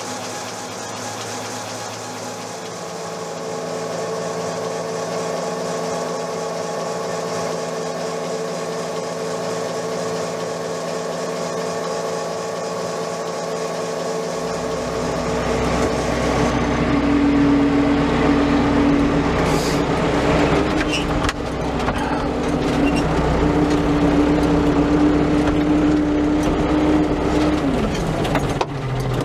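Water-wheel-driven generator and gearbox running steadily under load, a steady hum with several held tones. About halfway through it gives way to a louder tractor engine running, whose pitch drops briefly near the end.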